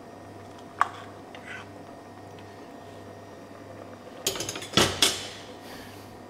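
Kitchen utensils and crockery clinking: a single sharp ringing clink about a second in, then a short burst of clattering and knocking a little after four seconds, over a low steady hum.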